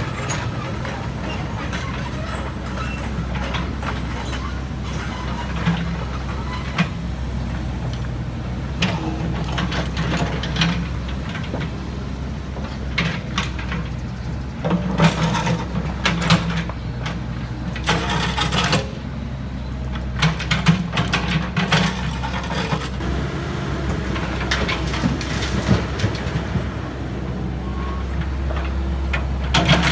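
Heavy vehicle's engine running steadily, with bursts of clatter and hiss from about halfway through.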